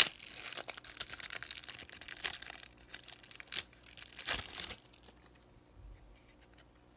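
Thin clear plastic wrapper crinkling and tearing as it is pulled off a stack of trading cards, with many small crackles, dying away about five seconds in.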